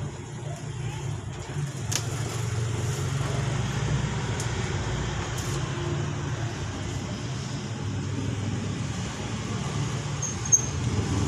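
Steady low rumble of a motor vehicle running, with a few faint clicks and one brief sharp snap near the end.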